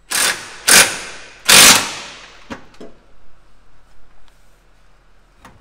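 Impact wrench fired in three short bursts, snugging a large bolt on a traction-bar bracket against the truck's chassis rail just enough to hold it while still loose, followed by a few light metal clicks and knocks.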